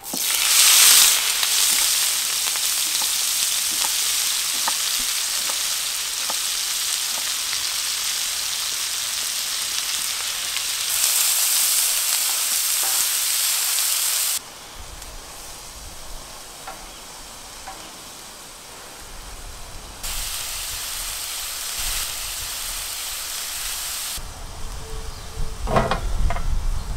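Chopped onion sizzling on a hot, large black frying disc, the sizzle surging as the onion is dropped in, then stirred with a wooden spatula. The sizzle cuts abruptly to a quieter level about halfway through and rises again later, with a few sharp clicks near the end.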